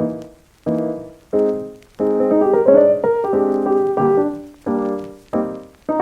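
Background piano music: chords struck one after another, most fading away before the next.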